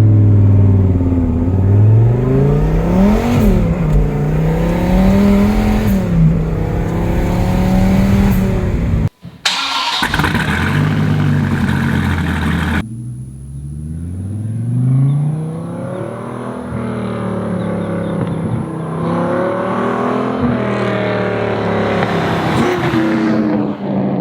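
Hennessey Viper's V10 engine revving, its pitch rising and falling again and again. Several clips are joined with abrupt cuts, about 9 and 13 seconds in.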